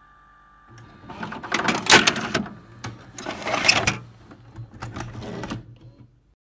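VCR ejecting a VHS cassette: about five seconds of mechanism whirring and clunking, loudest about two and three and a half seconds in, then it stops.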